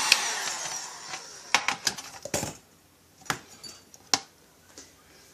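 A heat gun switched off with a click, its fan and airflow hiss dying away over about two seconds, followed by several light clinks and knocks of parts being handled on the aluminium crankcase half.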